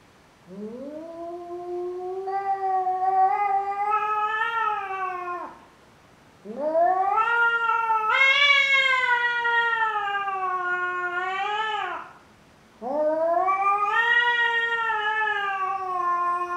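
Tabby domestic cat yowling at its own reflection in a mirror, which it takes for a rival: three long, drawn-out yowls of about five seconds each, each rising at the start and dropping away at the end.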